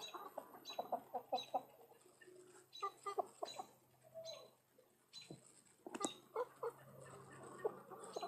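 Backyard chickens clucking softly in short, scattered calls, with a faint high chirp that keeps recurring.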